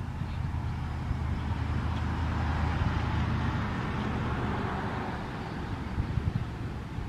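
A passing vehicle: road noise swells to a peak about three seconds in and fades again over a steady low rumble.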